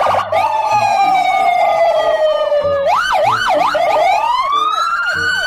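Electronic police siren wailing. It falls slowly in pitch, switches to a few quick up-and-down yelps about three seconds in, then rises again, over a fainter, faster warbling siren tone.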